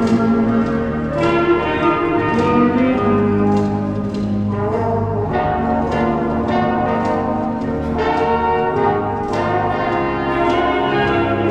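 Foxtrot music for the Rocker Foxtrot pattern dance, with a steady beat and bright, chiming tones.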